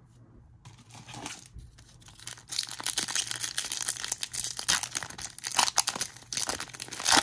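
A 2021 Topps Stadium Club baseball card pack wrapper being torn open and crinkled. It starts faintly about a second in and becomes dense, continuous crackling from about two and a half seconds.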